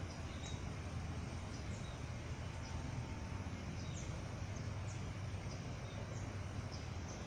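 Outdoor park ambience: a steady low rumble with short, high chirps repeating about once a second.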